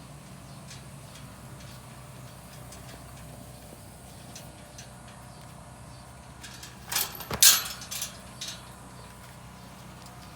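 A steady low mechanical hum, with a cluster of sharp clattering knocks about seven seconds in, the loudest near seven and a half seconds.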